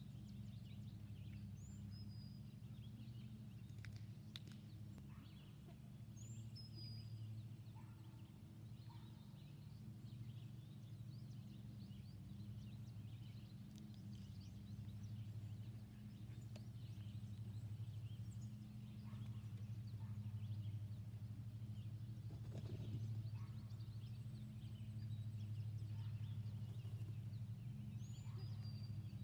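Outdoor ambience dominated by a steady low hum, with a short high bird chirp about two seconds in, again near seven seconds and once more near the end.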